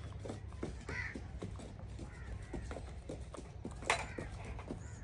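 A small hand trowel scraping and tapping as it scoops wet cement from a metal pan and smooths it onto a pot mould, giving a run of small clicks with one sharp knock just before four seconds in. A bird calls a couple of times in the background.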